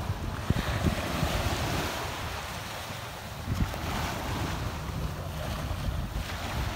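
Small bay waves breaking and washing up the shore, swelling and fading, with wind buffeting the microphone in low rumbling gusts.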